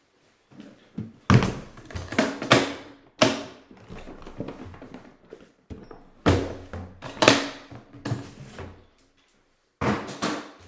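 A series of sharp knocks and thumps with rustling between them, from papers and objects being handled and set down on a table and someone sitting down at it.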